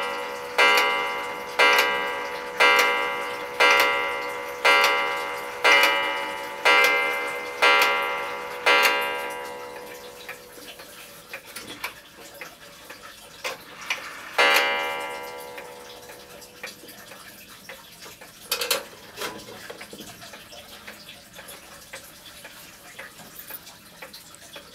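Antique American 8-day wall clock striking, one ringing stroke about once a second, nine strokes that die away about nine seconds in. After a pause a single stroke rings about fourteen seconds in while the hands are being set by hand, followed by a few sharp clicks and the clock's light ticking.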